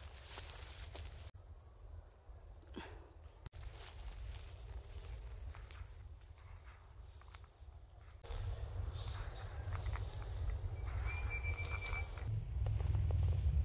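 Insects trilling in a steady, continuous high drone. A low rumble underneath grows louder about eight seconds in.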